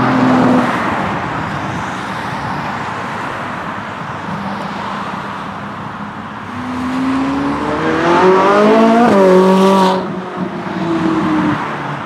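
Ferrari sports car engines driving off. One car's engine fades away at the start. From the middle on, another accelerates hard, its pitch climbing steadily and then dropping sharply at a gearshift, loudest just before the sound falls away near the end.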